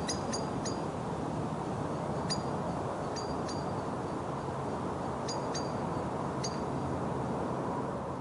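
Blackbird alarm calling: about nine short, sharp, high notes, singly and in quick runs of two or three, over a steady background hiss.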